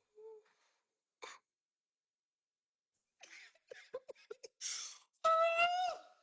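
A person coughing in fits: scattered small coughs, a cluster of short coughs, a sharp breath, then a longer strained, voiced cough near the end.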